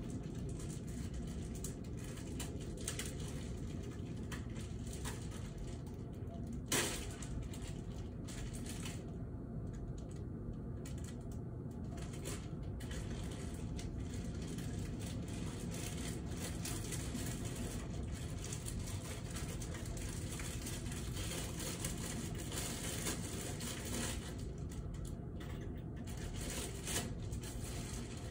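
Steady low ambient hum and hiss, with one sharp click about seven seconds in and a fainter one near the end.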